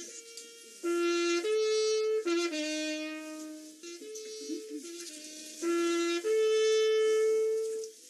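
A flugelhorn played on the boat at the Königssee echo wall: short phrases of held notes, each followed a moment later by fainter notes sounding back from the cliff face as the echo. The longest note is held for about a second and a half near the end.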